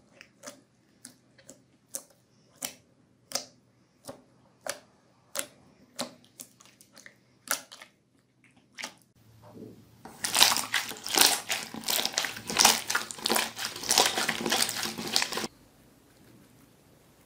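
Hands working slime in a bowl: sharp wet clicks and pops, one roughly every two-thirds of a second, as fingers press into the slime. After a short pause comes a dense, loud crackling and squishing for about five seconds that cuts off suddenly.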